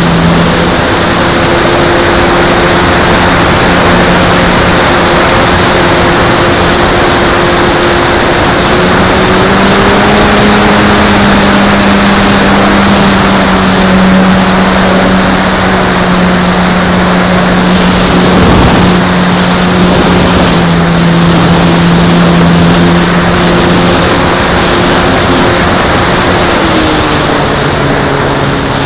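Radio-control Extra 330L model airplane's motor and propeller running loudly, heard from the onboard camera with heavy wind rush. The pitch rises about nine seconds in, drops around twenty seconds and drops again near the end as the throttle is changed.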